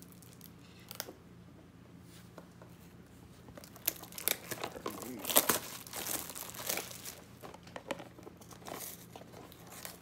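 Blind-box toy packaging being torn open and crinkled by hand: a few light clicks, then from about four seconds in a run of crinkling and tearing that is loudest around the middle and then tails off.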